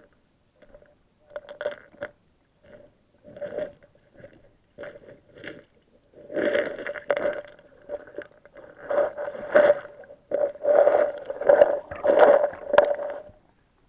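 Underwater sound through a camera's waterproof housing: irregular muffled swishes of water moving against the camera, growing louder and more frequent about halfway through, over a faint steady hum.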